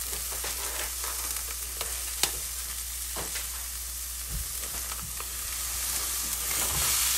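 Diced onion sizzling in a little olive oil in a pan over a high gas flame: a steady frying hiss with scattered sharp crackles. The sizzle swells near the end as a pound of raw ground turkey is tipped into the hot pan.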